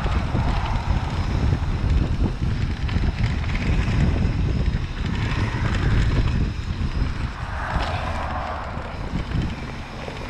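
Mountain bike riding a rough dirt trail: a steady rumble of tyres and frame over the ground mixed with wind buffeting the microphone, easing a little near the end.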